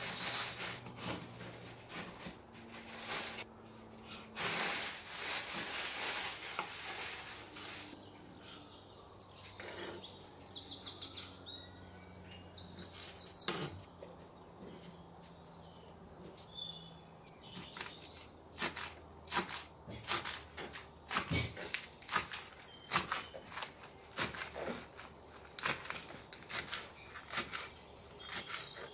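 Food preparation on a wooden cutting board: a knife cutting through a tomato, tomato crushed by hand over a bowl, then a run of sharp knife strokes through lettuce in the second half. Birds chirp in the background.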